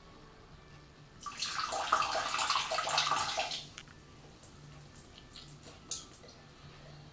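Water running from a bathroom tap for about two seconds, turned on and then off abruptly, with faint small clicks before and after.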